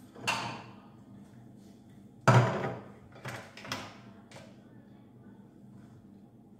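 A few knocks and scrapes of a glass bowl and kitchen knife on a kitchen worktop. The loudest is about two seconds in, with smaller ones after it.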